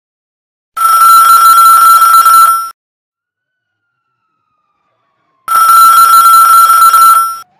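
Electric alarm bell ringing in two loud bursts of about two seconds each, a few seconds apart, with a steady high ring over a buzzing rattle: a station alert sounded ahead of an emergency dispatch call.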